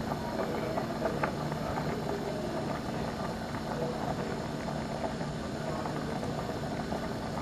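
Creamy sauce with sausage and mushrooms simmering in a pan, bubbling with small scattered pops over a steady low hum.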